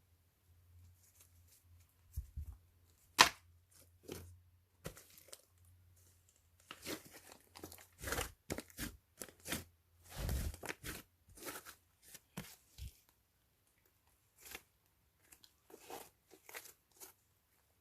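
Slime mixed with clay being worked by hand, crackling and popping as it is stretched and torn apart, with one sharp snap about 3 seconds in and a busy stretch of crackles in the middle.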